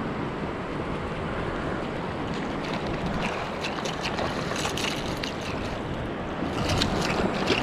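Surf washing and water moving around a wading angler, with wind buffeting the microphone; a few faint crackling splashes come in the middle and near the end.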